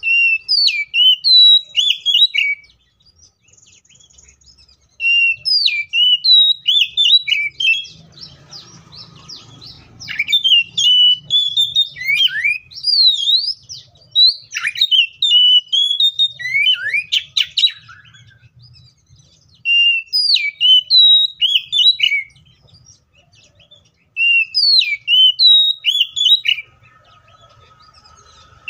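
Oriental magpie-robin (kacer) singing loud, varied whistled phrases with quick rising and falling notes. The song comes in bursts of two to three seconds with short pauses, and the longest unbroken run of song is in the middle.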